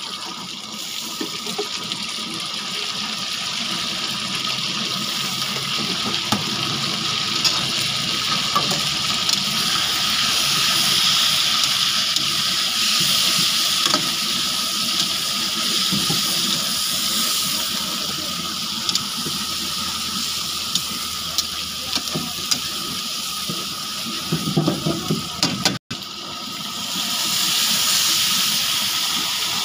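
Chicken pieces sizzling in hot oil in a karahi over a gas flame, with a spatula scraping and clicking against the pan now and then. Near the end the sizzle swells as tomato purée goes into the hot oil.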